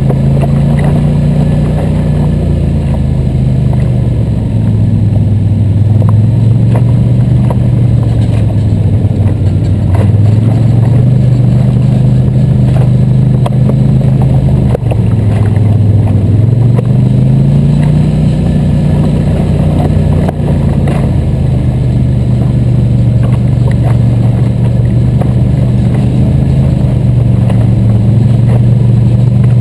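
ATV engine running close up as the machine rides a rough trail, its pitch falling and rising several times as the throttle eases and opens again, with a few light knocks from the machine over bumps.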